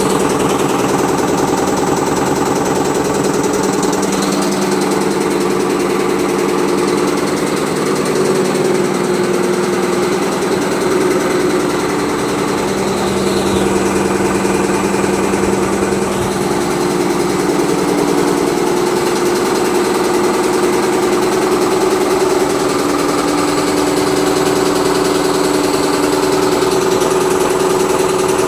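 Electric mealworm sifting machine running steadily: a constant motor hum with a noisy mechanical clatter of the sieve and rollers over it.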